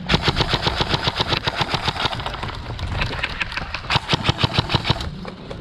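Airsoft rifle firing rapidly in long strings of sharp clicks, roughly ten shots a second, stopping about five seconds in. A steady low hum lies under the shots.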